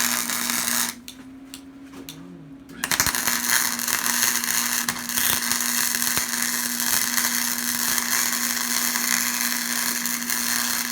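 Electric arc welding: a short weld that stops about a second in, then a longer steady crackling weld starting about three seconds in, over a faint steady hum.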